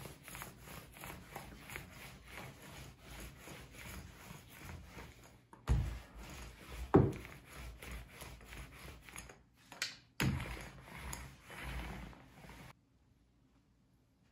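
Paint roller rolled back and forth over a particleboard surface, spreading glue in repeated rubbing strokes, with a few louder knocks mixed in. The sound cuts off suddenly near the end.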